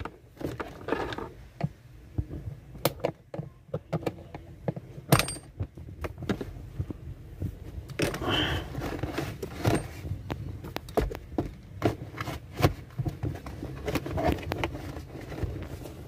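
Irregular clicks, taps and rustles of hand work under a car dashboard: a screwdriver and plastic wiring connectors knocking against the air-conditioning evaporator housing while a manual thermostat is being fitted.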